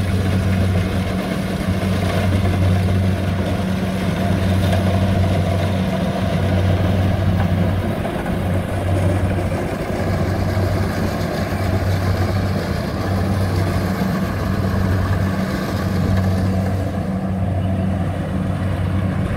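Engine of a rice harvesting machine running steadily: a low, even hum that dips briefly every couple of seconds, with mechanical clatter above it.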